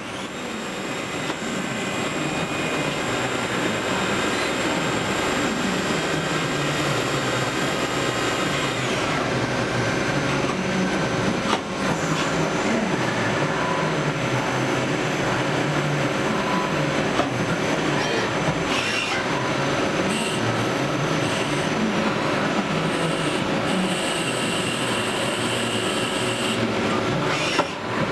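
Manurhin KMX 432 Swiss-type CNC lathe running: a steady mechanical whine and hum with cutting and coolant noise. The high whine shifts about a third of the way through, and a few short clicks come in the later part.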